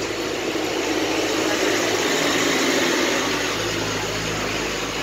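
Steady street traffic noise, a rushing hiss over a low engine-like hum that swells a little in the middle.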